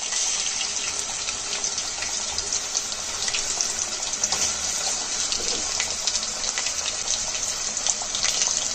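Marinated chicken pieces deep-frying in hot oil: a steady sizzle dotted with many small crackles.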